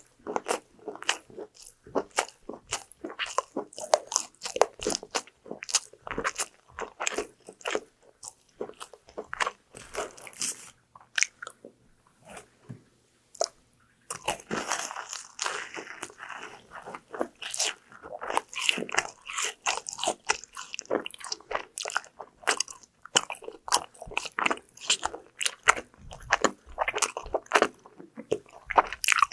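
Close-miked eating: crisp bites and crunchy chewing of fried food, the crackles coming thick and irregular, with a short lull about halfway through before a stretch of denser crunching.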